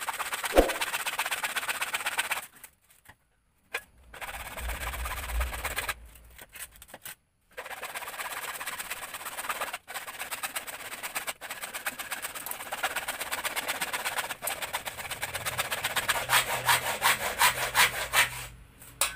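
Hacksaw cutting through white 2½-inch PVC pipe: a fast, even run of back-and-forth strokes that breaks off twice briefly, the strokes growing louder near the end as the cut goes through.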